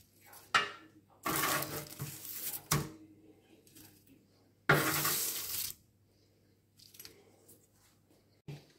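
Metal spoon scraping baked zucchini slices across a parchment-lined baking tray and clinking on a plate. There are two scrapes of about a second each, with sharp clicks before and between them.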